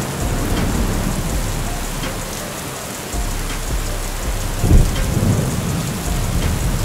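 Hurricane-force storm wind rushing and buffeting the microphone, with rain, in a dense steady roar of noise and deep rumbling gusts; the strongest gust hits about two-thirds of the way through.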